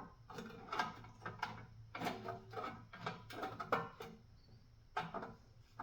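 A door-panel trim tool working in behind a snowblower control knob to pry it off: a series of irregular clicks, scrapes and small knocks.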